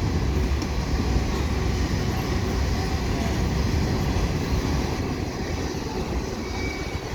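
Freight train's potash covered hopper cars rolling past, a steady rumble of steel wheels on the rails.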